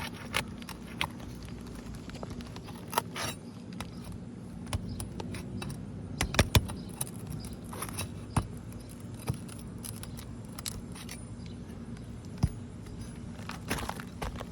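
Pry bar working under roof shingles to get out the nails: scattered metallic clinks, scrapes and sharp clicks, the loudest a little past six seconds in and again about twelve seconds in.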